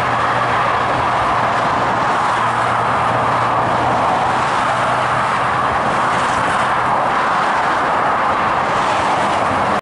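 Dense motorway traffic passing in a steady wash of tyre and engine noise, with a low engine hum fading out over the first six seconds or so.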